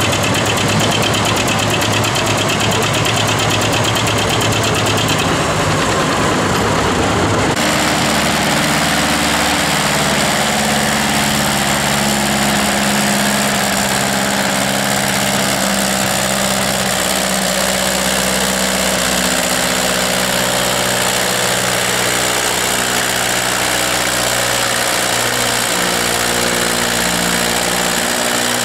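Vintage farm tractor engines labouring under full load while dragging a weight-transfer pulling sled. About seven seconds in, the sound cuts from one tractor's rapid, rough firing to a second, older tractor's steady, low-pitched running.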